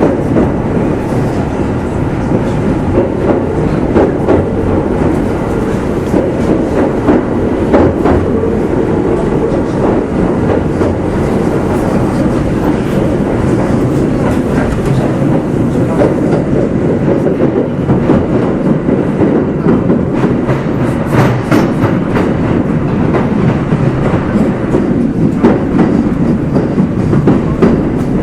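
Kintetsu 2610 series electric train running, heard inside motor car Mo 2669: steady running noise from the motors and wheels, with wheels clicking over rail joints.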